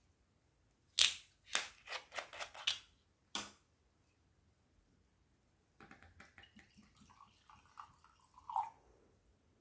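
Metal screw cap of a green glass soju bottle twisted open: a sharp crack as the seal breaks about a second in, then a quick run of clicks and one more click. Then soju is poured from the bottle into a glass tumbler, splashing and gurgling softly.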